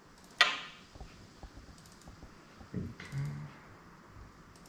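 Toyota VVT-i oil control solenoid clicking once, sharply, about half a second in as the ECU's output test switches it on, showing the output and its wiring work. A few faint ticks follow.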